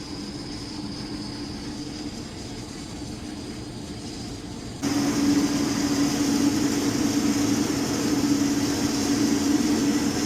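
Riello oil burner's blower motor running with a steady hum and a held tone, jumping abruptly louder about five seconds in. The burner will not fire: it keeps shutting off on its air switch.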